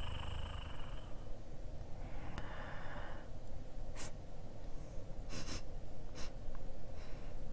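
Short breathy sniffs and snorts over a steady low background rumble: one longer breath about two seconds in, then quick sharp sniffs near the middle and later.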